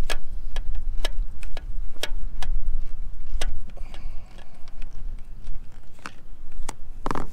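Sharp clicks at irregular intervals, roughly one a second, with one longer knock near the end, over wind rumbling on the microphone.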